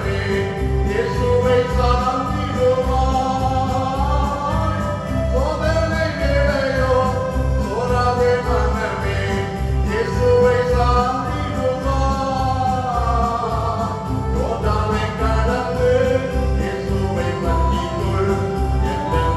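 A church hymn sung by a group of voices, with instrumental accompaniment keeping a steady low beat.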